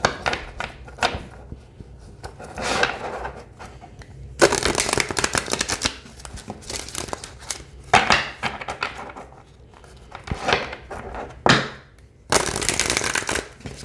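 A deck of oracle cards being shuffled by hand in repeated bursts, the card edges flicking and sliding past each other with quieter pauses in between. The cards slide freely and are not sticking together.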